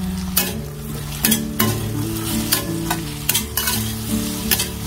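Cut okra frying in mustard oil in a steel kadai, sizzling steadily while a steel spatula stirs it and scrapes against the pan about eight times at irregular intervals.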